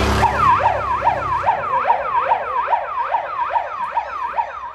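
Electronic siren sounding a fast yelp, its pitch swooping down and up about two and a half times a second. Demolition derby car engines run underneath it and drop away about a second and a half in.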